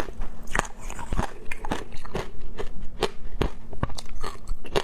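Close-miked crunching and chewing of ice coated in passion fruit pulp: irregular sharp cracks, about two or three a second.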